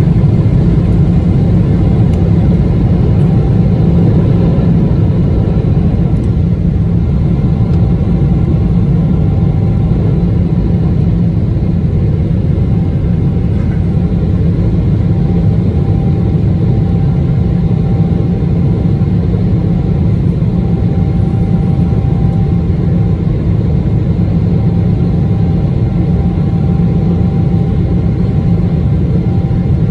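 Airliner's jet engines at takeoff power, heard from inside the cabin beside the engine during lift-off and the initial climb: a loud, steady low rumble with a faint steady whine that comes through more clearly from about halfway.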